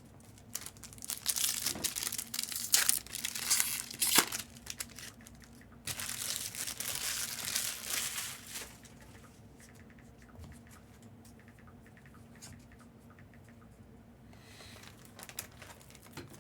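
Plastic card packaging crinkling and tearing as it is handled: sharp crackly bursts, then a steadier tearing rustle, then only faint clicks.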